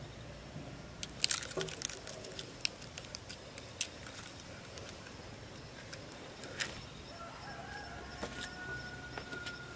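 Husked bamboo shoots knocking and clacking against each other as they are handled and tied into a bundle: a quick cluster of sharp knocks about a second in, then scattered single knocks.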